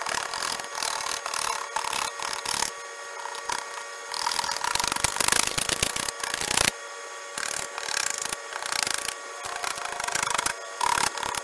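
Razor blade scraped hard by hand across a car windshield, flaking off cured windshield-repair resin: a run of rasping strokes in quick bursts with short pauses.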